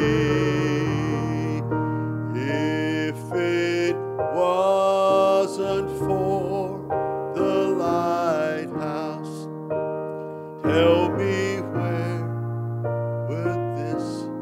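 Slow gospel song: a voice singing long held notes with vibrato and slides between pitches over sustained piano chords.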